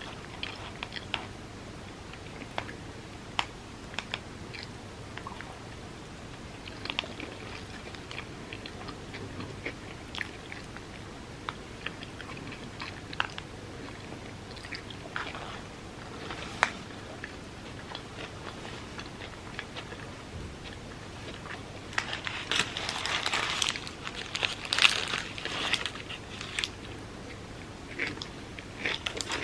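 A person chewing and biting food close to the microphone, with scattered sharp mouth clicks and smacks. About three quarters of the way through comes a louder, denser stretch of eating noise.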